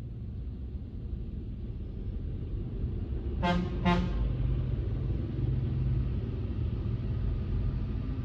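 Steady low rumble of road traffic, with two short beeps of a vehicle horn close together about three and a half seconds in.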